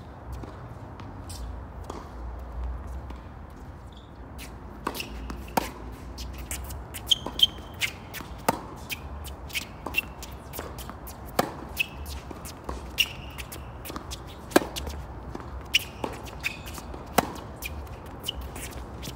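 Singles tennis rally on an outdoor hard court: racket strings striking the ball about every second and a half, with the ball bouncing and shoes squeaking on the court between hits. Only a few scattered taps in the first few seconds before the rally starts.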